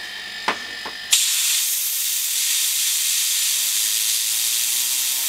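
Compressed air blasting from a blow gun onto an opened hard drive's platter: a loud steady hiss that starts suddenly about a second in. Under it a faint whine rises slowly in pitch as the air spins the disc up.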